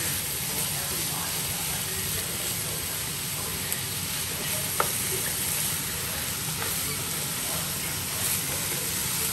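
Pork cubes and sliced onions sizzling steadily as they fry in a nonstick wok, stirred with a plastic spatula. There is a sharp tap of the spatula against the pan about halfway through.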